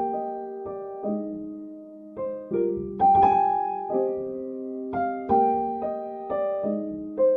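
Soft solo piano music: single notes and chords struck one to two times a second, each left to ring and fade.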